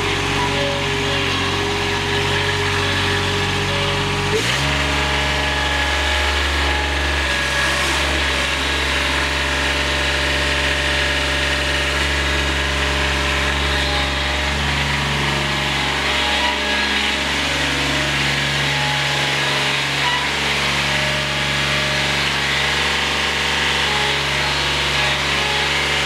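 Diesel engine of a Toro Greensmaster 3250-D ride-on greens mower running steadily as the mower drives forward on its freshly resealed hydraulic drive. The engine note shifts abruptly to a lower, steadier sound about four seconds in, and the engine stops right at the end.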